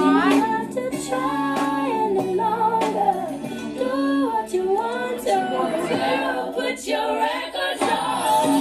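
A song with female singing over instrumental backing and a beat.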